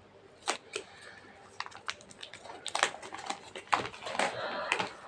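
A small package being opened by hand: irregular crinkles and clicks of packaging, busier in the second half.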